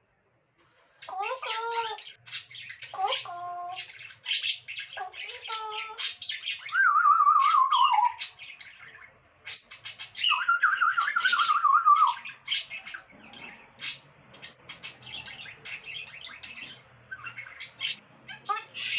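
A pet parrot calling: a run of squawks and chirps, with two long wavering, trilled whistles about seven and ten seconds in.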